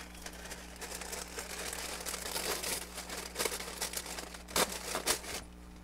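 Thin printed wrapping paper crinkling as hands handle it and peel the paper sticker sealing it, with a few sharper crackles along the way; it quiets near the end.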